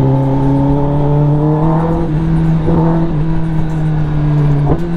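Kawasaki ZX-10R's inline-four engine running through an SC Project exhaust under way. Its note climbs gradually over the first two seconds, then holds, with a brief sharp rise in revs near the end.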